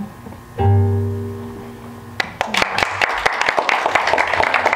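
A final strummed chord on an acoustic guitar rings out and fades, then an audience breaks into applause about two seconds in.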